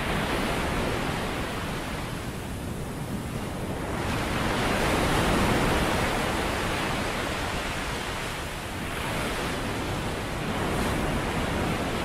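Bose Sleepbuds 2 'Swell' noise-masking sound: a steady rush of ocean-surf noise that swells louder about five seconds in and again near eleven seconds, like waves rolling in.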